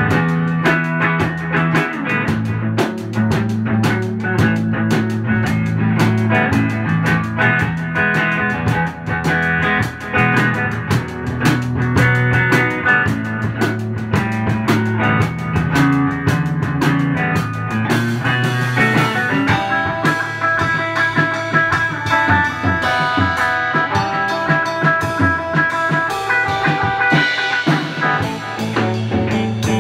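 Electric guitar, a Fender Stratocaster played through a Fender Princeton Reverb amp, jamming over a live drum kit. The cymbals fill in more from about two-thirds of the way in.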